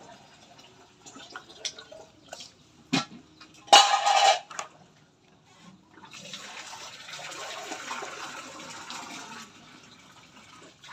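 Water splashing and sloshing in a metal basin of live eels and small fish as they are stirred and moved with a bamboo stick, with a few knocks early on, a loud splash about four seconds in and a longer stretch of sloshing after six seconds.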